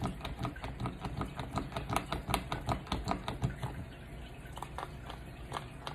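Plastic pump dispenser on a moisturizer bottle clicking as it is pressed over and over, about five clicks a second, thinning to scattered clicks about three and a half seconds in. The pump is not yet primed, so no cream comes up.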